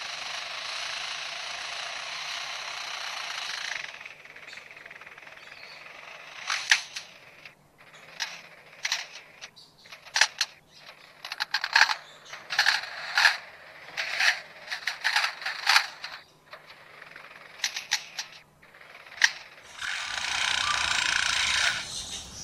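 Superb lyrebird mimicking machinery: a steady hissing noise like a running chainsaw at the start, louder for the first few seconds, then a fast, irregular run of mechanical clicks and rattles, and the chainsaw-like hiss again near the end.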